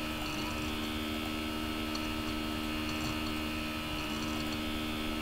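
Steady electrical hum made of several constant tones over a low hiss: the background noise of the recording setup. One of the lower tones fades out shortly after the start and returns about four seconds in.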